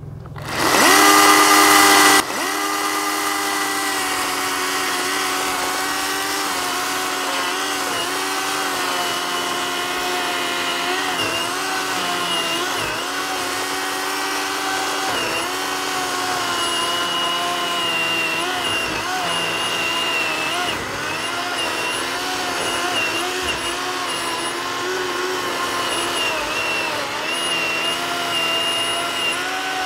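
Ryobi ONE+ 18V HP brushless 10-inch chainsaw: it whines up to full speed unloaded for about two seconds, then the pitch and loudness drop as the chain bites into the wood of a stump. It keeps running under load, its pitch wavering as it cuts.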